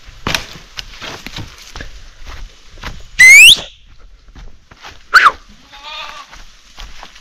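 A shepherd's loud, rising whistle to his flock, then a second call that falls and rises, followed by a short wavering bleat from a sheep or goat. Twigs and undergrowth rustle and snap throughout.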